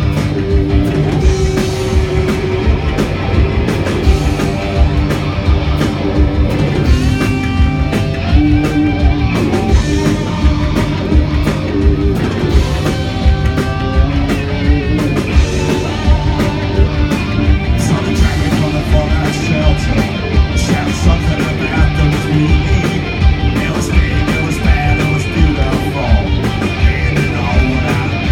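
Rock band playing live: distorted electric guitars over a driving drum beat, loud and continuous.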